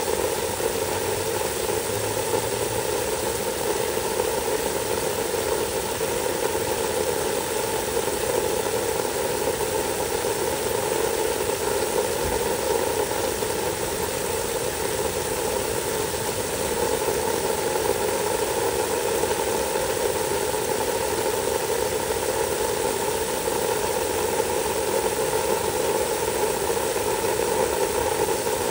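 Water spraying steadily from a hose onto charred wood mulch, an even, unbroken rush of spray.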